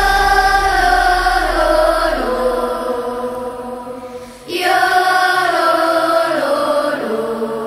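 A vocal group singing long held chords with no drums, in two phrases that each step down in pitch and fade; the second begins about four and a half seconds in.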